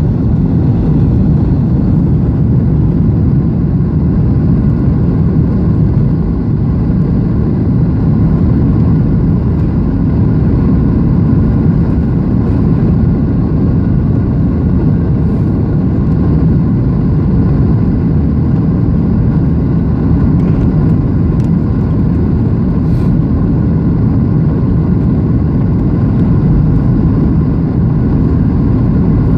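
Steady cabin noise inside a Boeing 737-700 in flight on the way in to land: the hum of its CFM56-7B jet engines and rushing air, heard from a window seat over the wing.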